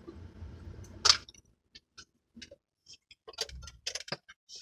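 Close-up chewing and mouth clicks of someone eating fried chicken wings: a sharp crunch about a second in, then scattered soft wet clicks and smacks with quiet gaps between.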